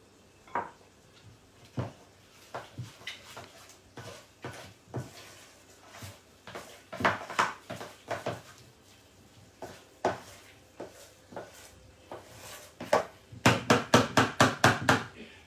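A spoon stirring thick chocolate cream in a metal mixing bowl, clinking and scraping against the bowl in irregular strokes, then a quick run of about six strokes a second near the end.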